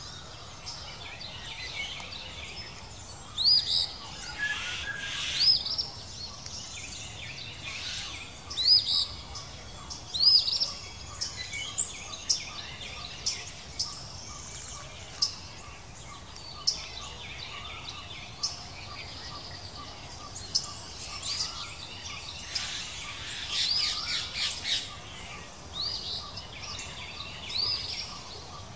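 Birds calling outdoors: short, high rising chirps repeated every second or two over a steady background of outdoor noise.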